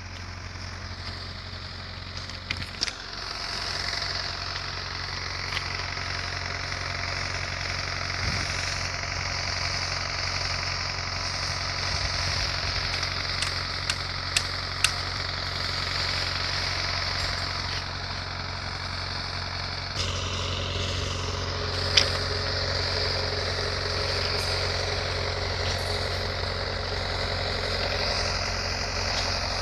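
An engine idling steadily, with a few sharp clicks over it.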